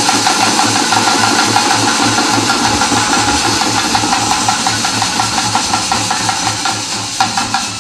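Ensemble of parai frame drums beaten with sticks in fast, loud thappattam drumming, a dense rhythm at about four beats a second, with a few sharper accented strokes near the end.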